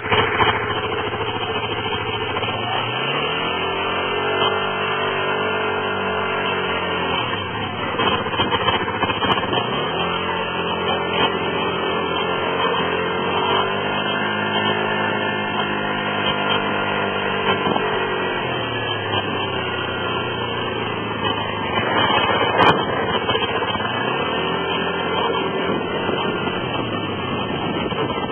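Water-cooled SYM Tigra 125 scooter engine running while ridden, its pitch rising as it accelerates and falling as it slows, three times over. It carries an abnormal running noise, most noticeable about halfway through and again near the end; one sharp click late on.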